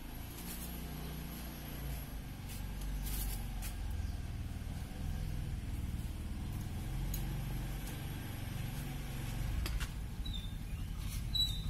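Low, steady rumble of a vehicle engine running nearby, its pitch wavering slightly. Near the end come two short, faint high chirps.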